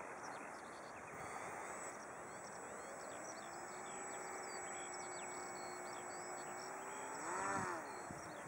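Many small birds chirping and twittering out in the open. A faint steady hum comes in about three seconds in, and a brief, louder sound rising and falling in pitch stands out about seven and a half seconds in.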